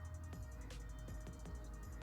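Background music with a steady beat over a low bass.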